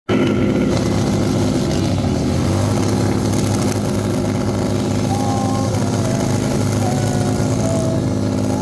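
Motorcycle engine running loudly at a steady speed, its pitch holding constant. From about five seconds in, a thin wavering high squeal comes and goes above it.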